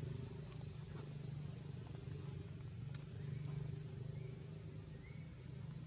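A steady low hum throughout, with a few faint clicks and two brief high chirps near the end.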